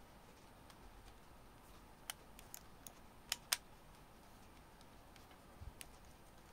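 Small sharp plastic clicks from a Canon iVIS HF R30 camcorder as an SD card is pushed into its card slot and the slot cover is snapped shut. The clicks come in a cluster starting about two seconds in, with the two loudest close together at about three and a half seconds, then one more click near the end.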